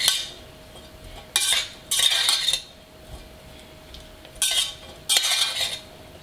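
Metal spoon scraping and clinking against a stainless steel saucepan while stirring corn kernels and bits of cheese, in short bursts with pauses between.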